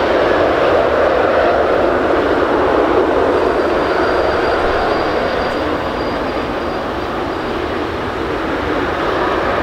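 Jet engine roar from a Boeing 777 freighter with GE90 engines rolling out on the runway just after landing, ground spoilers raised. The loud, steady roar eases a little in the middle and builds again near the end, with a faint high whine through the middle.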